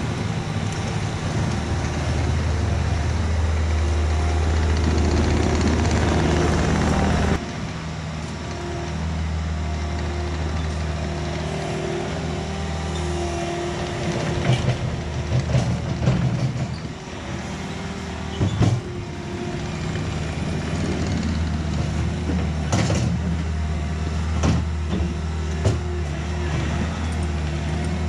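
Diesel engine of a compact loader running at working throttle: louder for the first seven seconds, then the note drops suddenly, and several sharp metal clanks come in the second half.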